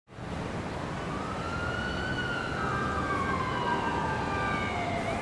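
A siren wailing slowly, rising to a peak about two seconds in and falling through the next three seconds, over a low rumble.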